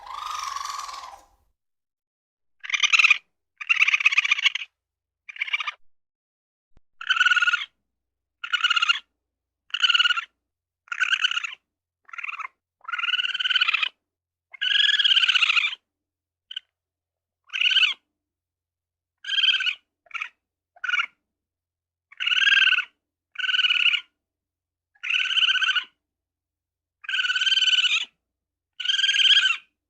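A small animal giving a long series of short, high-pitched calls, each under about a second and a half, separated by brief silent gaps; a few of the calls rise and fall in pitch.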